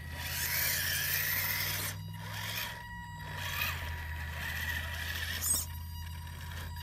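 RC scale crawler truck's electric motor and drivetrain whining while it climbs a rock slab, with its tyres scraping on gritty rock. The scraping noise cuts out briefly a couple of times and again near the end as the truck pauses.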